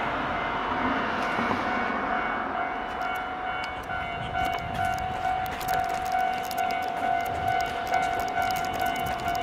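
Railway level crossing warning alarm ringing in a steady tone as a train approaches the station, over a continuous rushing noise.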